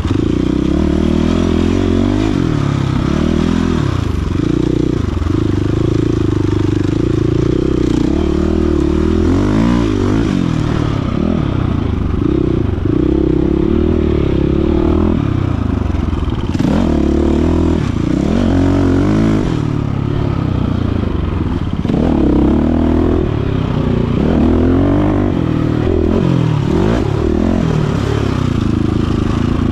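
Dirt bike engine being ridden hard off-road, its pitch rising and falling over and over as the throttle opens and closes, with clattering from the bike over rough ground.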